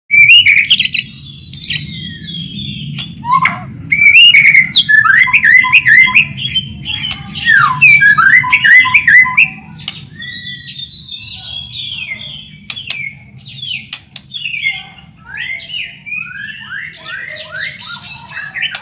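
White-rumped shama (murai batu) singing a fast, varied song of whistled phrases and quick sweeping notes, louder in the first half and softer in the second, over a low steady hum.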